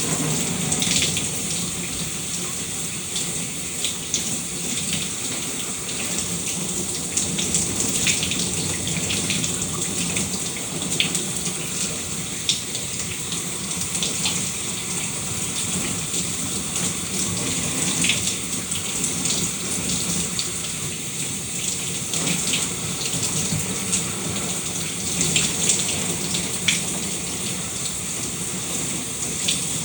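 Shower running: a steady hiss of spraying water with many small splatters of drops hitting a surface.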